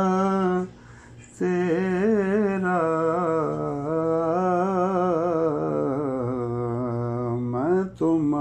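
A male voice singing an Urdu devotional poem, drawing out long, wavering held notes. There is a short gap about a second in and a brief break near the end.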